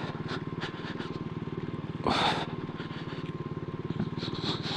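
Motorcycle engine running steadily at low revs while the bike crawls over rough ground, with a brief hiss about two seconds in.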